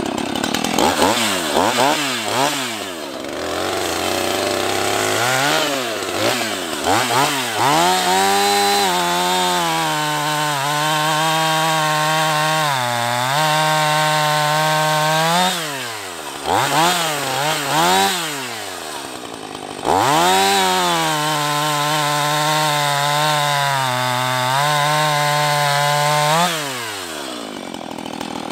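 Husqvarna 450e Rancher 50cc two-stroke chainsaw cutting through a log under light pressure. It is blipped a few times, then held at steady full throttle through two long passes of about seven and six seconds, revving up and down between them, and drops back to idle near the end.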